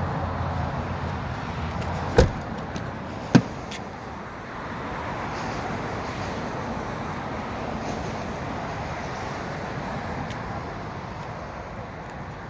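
Two sharp thumps about a second apart from the 1993 Toyota Aristo's doors as the car is got out of and the rear door is opened. Steady distant traffic noise runs underneath.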